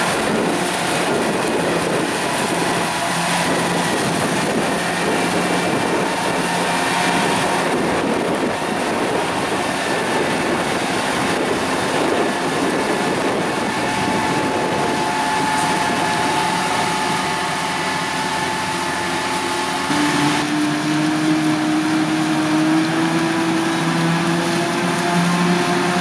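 Krone BiG X 530 forage harvester chopping maize, its engine and chopping drum running steadily under load, together with the tractor and trailer running alongside. The tone shifts abruptly about twenty seconds in.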